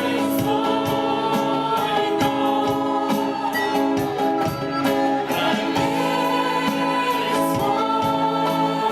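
Christian worship song: voices singing long held notes together over a band with a steady beat.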